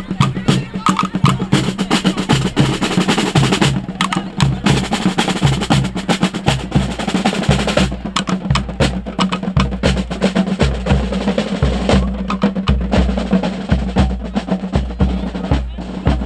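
Fanfare band playing a march: snare drum rolls and strokes over a held low brass note, with a steady bass drum beat of about two a second coming in about halfway through.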